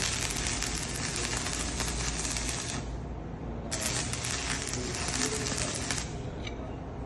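Electric arc of a Telwin Nordika 1800 stick welder crackling in two runs, the first about three seconds long and the second about two and a half, with a pause of about a second between them. A low steady hum sits underneath.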